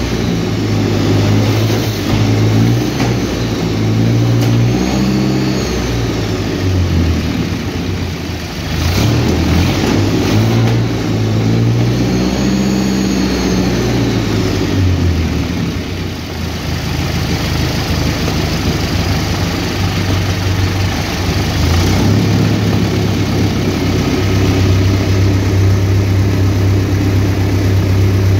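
Sofam petrol tank engine from an AMX-13, running for the first time in over 20 years. Its revs are raised and dropped by hand at the throttle four or so times in the first half, then it settles to a steady idle.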